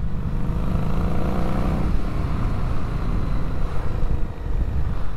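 Harley-Davidson Street 500 V-twin engine running steadily while riding, mixed with wind noise on the helmet microphone.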